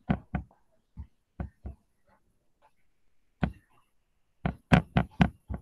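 Sharp clicks from a computer mouse and keyboard, in irregular runs: three quick clicks at the start, three spaced ones about a second in, one single click, then a fast run of about five near the end.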